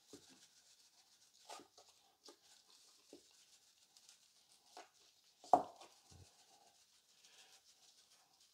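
Faint rustle and patter of seasoning shaken from a plastic shaker jar onto raw chicken wings, with a gloved hand turning the wings in a plastic tub. A short knock about five and a half seconds in is the loudest sound.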